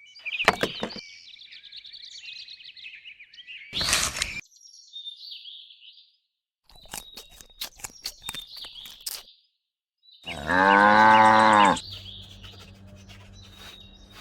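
Short spliced bits of birds chirping with scattered clicks, then a single loud cow moo lasting about a second and a half near the end, followed by a faint low hum.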